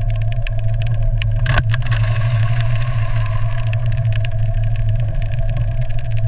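Heavy engine running with a steady low drone, overlaid with many small clicks and rattles, and one brief sharper sound about a second and a half in.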